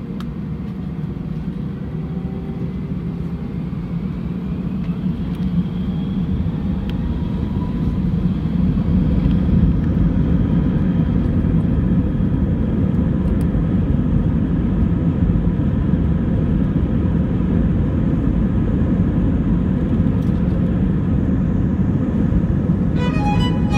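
Steady low rumble of a vehicle in motion, growing louder over the first several seconds and then holding, with faint rising whines. Music comes in near the end.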